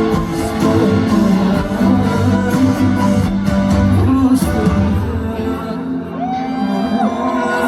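Live pop song played loud through a concert sound system, with singing and crowd voices whooping along. About six seconds in the backing thins out and a few held, gliding voices carry over it.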